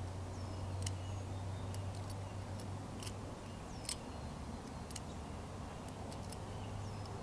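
Balisong (butterfly knife) handles and blade clicking and clacking as it is flipped and tossed, about ten sharp metallic clicks at irregular intervals.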